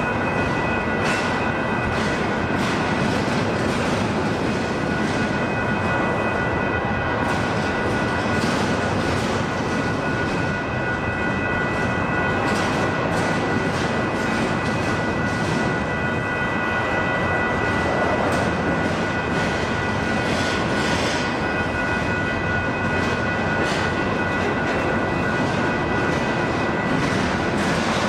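Double-stack intermodal freight train rolling past, its container well cars rumbling and clacking over the rails, with a steady high whine held over the noise.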